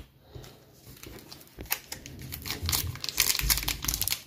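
A foil hockey card pack being handled and torn open, its wrapper crinkling and ripping. The crinkling starts about a second and a half in and gets louder near the end.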